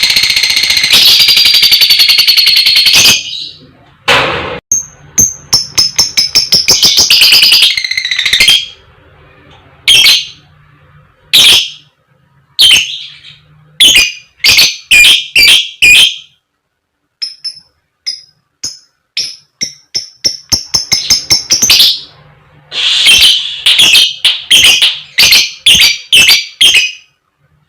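Lovebird calling: a long, rapid, high-pitched chattering run, then strings of sharp short 'koek koek, cik cik' calls in bursts with short pauses, and another long chattering run near the end.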